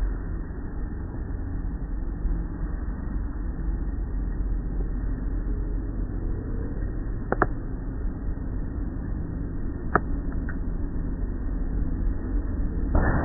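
Automatic car wash tunnel machinery running, with a foam curtain applicator pouring over a car: a steady low rumble heard through the viewing window. A few sharp clicks stand out in the second half.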